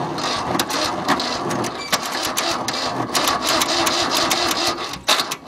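Tractor engine being cranked over by its electric starter without catching: a steady mechanical whirring with irregular clicks, pausing briefly near the end before cranking again. A cold start on an engine that has sat about a month, with ignition problems.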